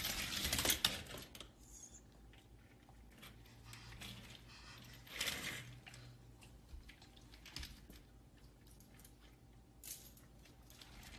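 Faint, irregular clicking and rattling from a small plastic toy stroller being pushed over a tile floor. It is a little louder in the first second, with brief louder rustles about five and ten seconds in.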